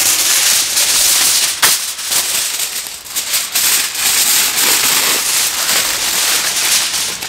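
Aluminium foil crinkling and rustling continuously as a sheet is laid out and folded around a foil-wrapped parcel, with one sharper crackle about a second and a half in.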